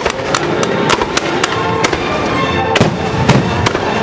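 Fireworks going off in a rapid, irregular string of sharp bangs and cracks, over the show's accompanying music.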